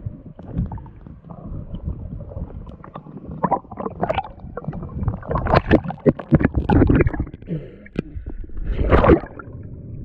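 Underwater camera audio of a freediver swimming: bubbles gurgling and water rushing against the camera in irregular crackly bursts, with the loudest gush about nine seconds in.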